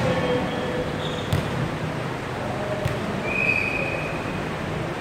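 Basketball game in a large echoing gym: a couple of ball thuds on the court about a second and a half apart and a short sneaker squeak, over the steady din of the hall.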